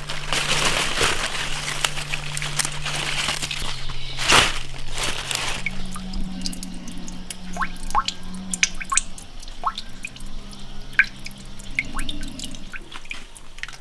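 Napa cabbage leaves rustling and crinkling as they are picked by hand, with a sharp snap about four seconds in. Then water dripping in a tank holding a live sturgeon.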